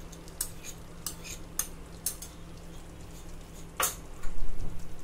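A metal spoon clinks and scrapes against a ceramic bowl as tomato puree is emptied into a kadhai, then a wooden spatula starts stirring the thick masala. There are several sharp clinks, and the loudest sound is a dull bump near the end.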